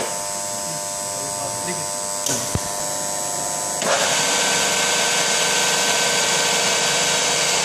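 Huron MU5 knee-type milling machine running, its spindle gearbox giving a steady whine. A single clunk comes about two and a half seconds in as the spindle speed is changed. At about four seconds the machine comes up to the new speed and runs louder, with a higher, fuller whine.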